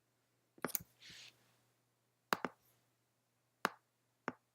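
Scattered sharp clicks from a computer being operated during photo editing, about six spread irregularly over a few seconds, with a brief soft hiss about a second in, over a faint steady low hum.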